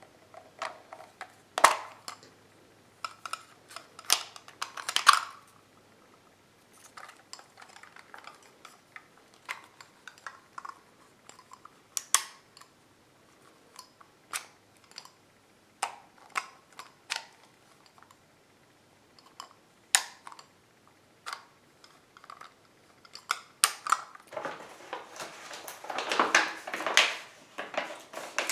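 Small items being handled: scattered light clicks and taps, with a longer stretch of rustling near the end.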